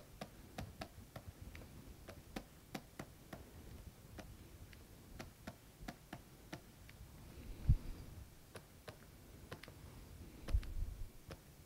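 Faint, irregular ticks, a few a second, of a stylus tapping on a writing tablet as labels are handwritten. A low thump a little before eight seconds in and another near eleven seconds stand out above the ticks.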